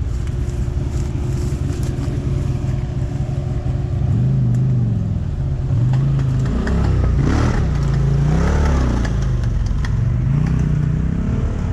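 ATV engine idling steadily, then from about four seconds in revving up and down over and over.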